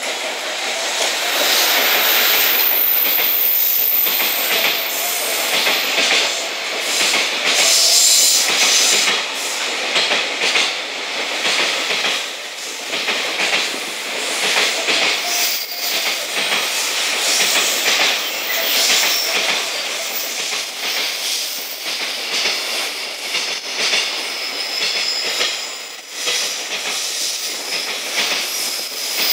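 JR Freight EF210 electric locomotive passing close, followed by a long train of container flatcars rolling by: a loud, continuous rumble and clatter of steel wheels over the rail joints.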